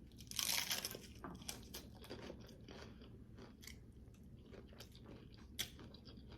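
A bite into a crispy low-carb taco shell, with a loud crunch about half a second in, followed by close-up chewing with many small crunches and clicks.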